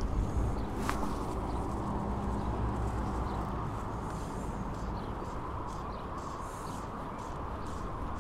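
Fast river water rushing steadily, with a low rumble on the microphone that eases after about four seconds. A single sharp tick sounds about a second in.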